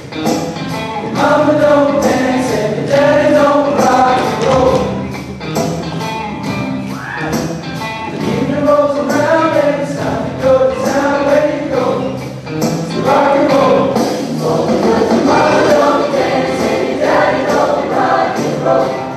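Show choir singing together in a rock and roll medley, with accompaniment keeping a steady beat.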